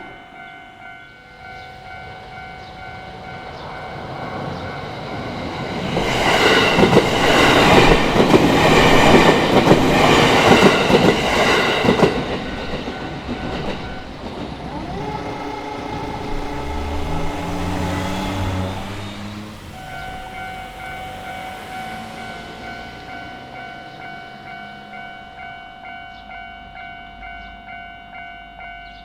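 Japanese level-crossing alarm ringing in steady repeated strokes while an electric train passes over the JR Kawagoe Line crossing. The train's rush and wheel clatter on the rails is loudest about six to twelve seconds in, followed by a lower motor whine that steps in pitch as it goes. The crossing bell then carries on alone.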